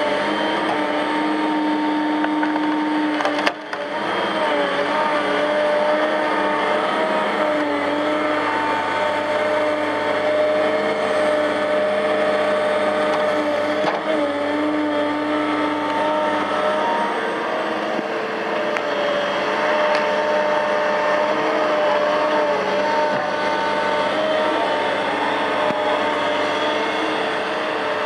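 Diesel engine and hydraulics of a Cat M316D wheeled excavator running steadily under load while it works a tree-shear head, with a pitched whine that wavers now and then. The sound dips briefly about three and a half seconds in.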